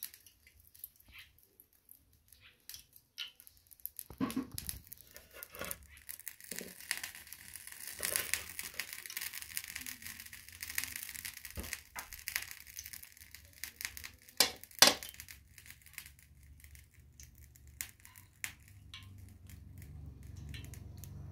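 Cooking oil heating in an aluminium saucepan over a charcoal stove, with a faint crackle and hiss that grows stronger about eight seconds in. Light clicks and taps are scattered throughout, and two sharper knocks come about fifteen seconds in.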